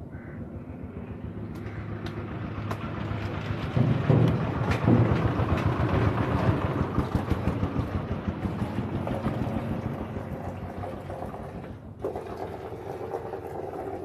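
A motor vehicle's engine passing by, growing louder over the first few seconds and then slowly fading away.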